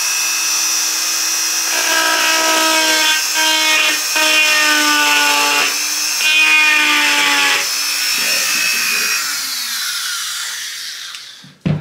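High-speed rotary tool fitted with a small side-cutter bit, whining as it cuts at a small rivet on the helmet, its pitch sagging several times as the bit bites under load. It spins down near the end, followed by a short knock.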